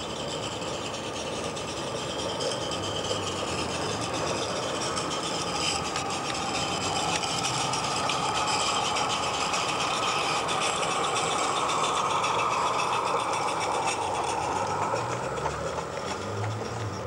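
Miniature live-steam garden railway locomotive running past with its train of coaches: a steady hiss and mechanical rattle of the engine and wheels on the track that grows louder as it comes close, then eases near the end.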